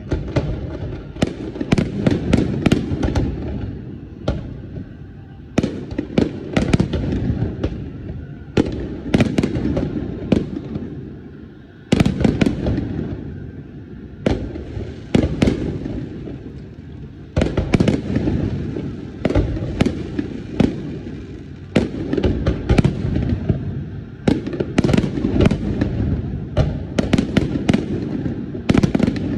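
Fireworks display: aerial shells bursting in rapid clusters of sharp bangs, with a continuous low rumble between the bursts.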